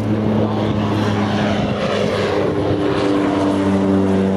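Propeller engine of a single-engine floatplane droning as it flies low overhead. Its pitch drops a little about three seconds in as it passes.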